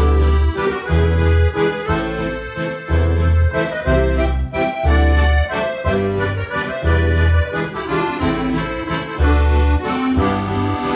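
Accordion playing a lively Oberkrainer-style tune, with chords over a steady bass note about once a second.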